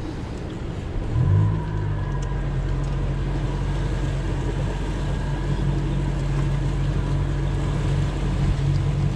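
Boat's outboard motor running under way, its note rising about a second in and then holding steady.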